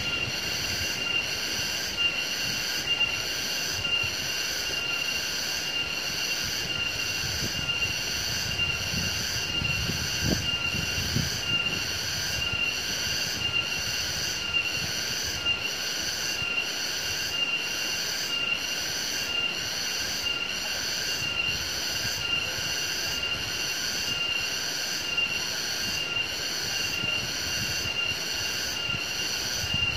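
Insects calling steadily: a shrill constant tone with a rhythmic pulsing over it, about one and a half pulses a second.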